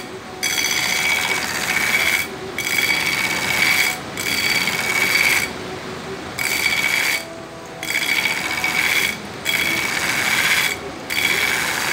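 Belt grinder's abrasive belt grinding a steel knife blade to a distal taper, in about seven passes of one to one and a half seconds each. Each pass is a high ringing hiss while the blade is pressed to the belt, and the motor keeps running in the short gaps between passes.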